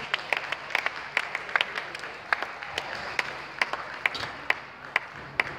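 Scattered light clapping between points, mixed with the sharp clicks of table tennis balls from other tables in the hall. The clicks come irregularly, a few a second, some louder than others.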